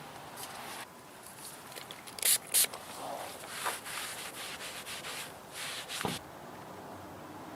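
Rubbing and scraping handling noises lasting a few seconds, with two short, sharp hissing bursts about two seconds in. They stop suddenly near the end.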